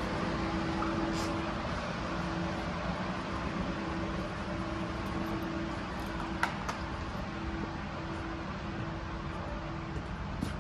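A steady machine hum with a few faint knocks.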